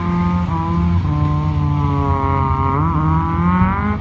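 Toyota AE86 Corolla engine revving while the car drifts. It holds a steady pitch for the first couple of seconds, then climbs in pitch over the second half with a brief stumble partway.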